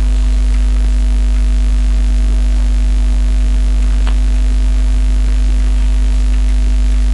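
Loud steady electrical mains hum with a constant hiss on the recording, with one faint tick about four seconds in.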